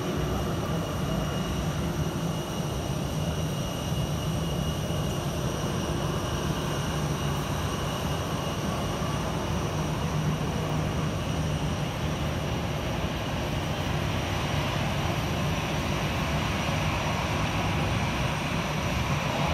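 Steady aircraft noise: a constant drone with a low hum and a thin high whine, unbroken throughout.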